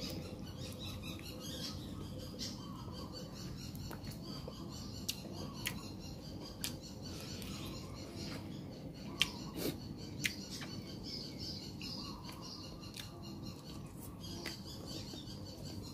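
A person chewing pieces of chicken close to the microphone, with wet mouth and lip smacks. A few sharp smacks come about five to ten seconds in, over a steady low background noise.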